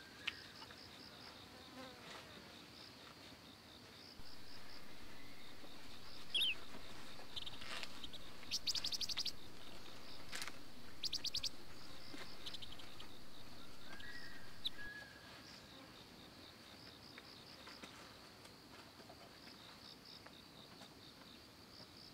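Insects chirping in a high, steady pulsing rhythm. From about four seconds in until about fifteen, a louder steady noise joins, with a few quick trills and clicks over it.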